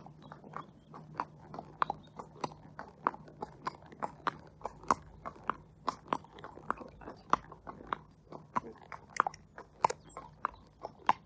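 Hooves of a thoroughbred horse striking a wet tarmac road at a walk: a steady clip-clop of sharp clicks, about three a second.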